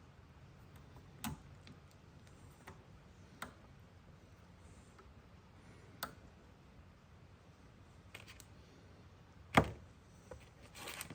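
Scattered clicks and knocks of hand work on a bicycle's rear derailleur during adjustment: about half a dozen separate sharp clicks, the loudest knock about nine and a half seconds in, and a short rattle near the end.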